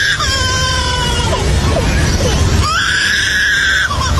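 An animal giving loud, high-pitched screaming calls, each held for about a second: one fading at the start, one slowly falling in pitch, and another about halfway through, over a steady low rumble.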